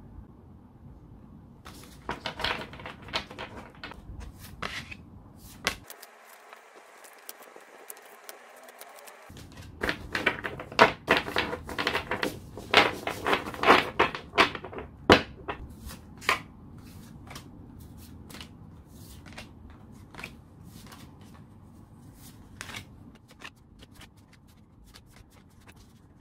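Small products and packaging being handled and sorted by hand: an irregular run of clicks, taps and light rustles as items are picked up and set down. It is busiest and loudest from about ten to sixteen seconds in.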